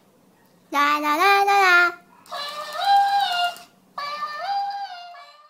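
Talking plush hamster toys sing in high, squeaky voices, in three short phrases that each rise in pitch partway through.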